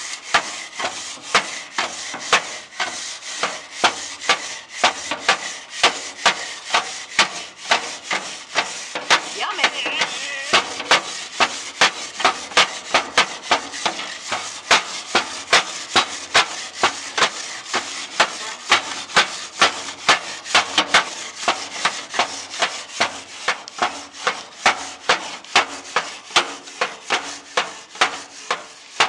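Charcoal grill's metal cooking grate being scraped clean with steady back-and-forth strokes, about two a second.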